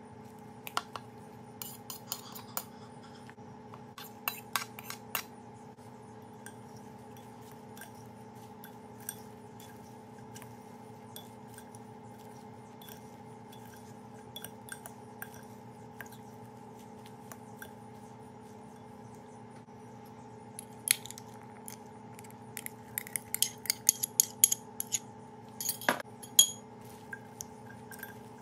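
Metal utensils clinking and scraping against a glass bowl as a couscous salad is tossed. The clinks come in a scattered cluster early on, a few more in the middle, and a dense, louder run near the end, over a faint steady hum.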